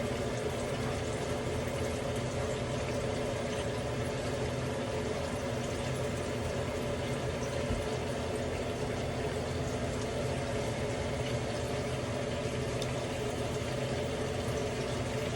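Breaded chicken cutlets frying in hot oil in a pot, a steady sizzle.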